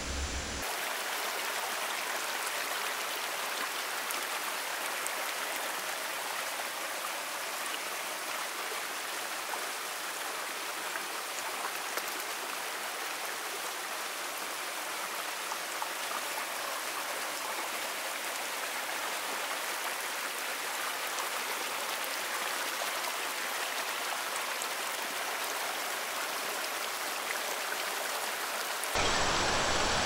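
Shallow rocky stream rushing and splashing over boulders in small cascades, a steady water sound. Just before the end it cuts to a louder rushing with more low rumble.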